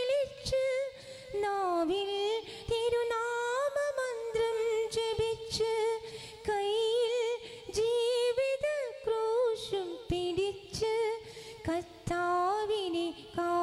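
A woman singing a slow devotional hymn, the melody wavering and ornamented with vibrato.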